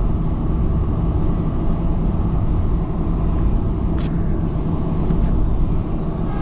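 Car driving at city speed, heard from inside the cabin: a steady low rumble of road and engine noise, with one sharp click about four seconds in.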